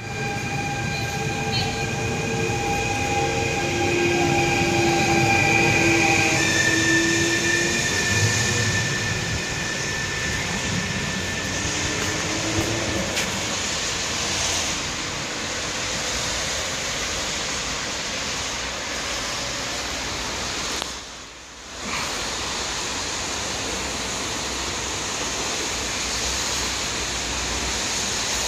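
Stadler FLIRT electric multiple unit pulling away: an electric whine of several steady tones that change pitch in steps during the first seven seconds, over the rumble of wheels on rail. It then gives way to a steady hiss, which dips briefly about 21 seconds in.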